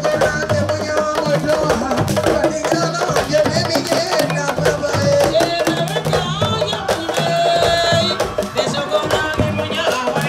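Music of fast, dense hand drumming with a voice singing over it.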